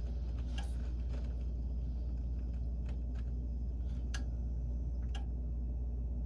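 Steady low hum with a few light clicks scattered through it, from a high-efficiency gas furnace as it is powered back on and begins its start-up sequence.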